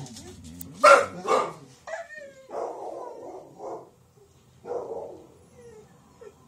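Dog barking twice, loudly, about a second in, then whining and giving a few softer yips.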